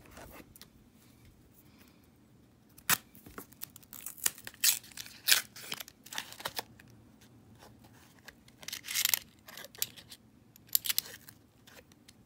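Paper wrapper of a roll of half dollars being torn open and crinkled, in a series of short, irregular rasps and crackles that start about three seconds in.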